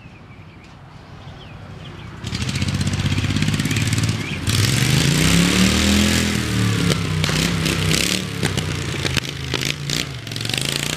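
Straight-piped Briggs & Stratton V-twin engine on an off-road riding mower, loud and raw, driving toward the listener. It starts faint, gets much louder about two seconds in and again halfway through, where its pitch rises and falls, then runs steady and loud as it passes close by.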